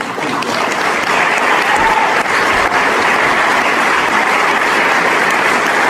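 A congregation applauding: steady, dense clapping.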